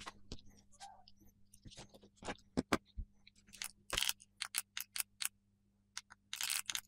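Light handling clicks and taps: silicone ear tips set down on a table and a portable music player turned over in the hands, with a run of quick clicks a few a second in the middle and a denser cluster of clicks near the end.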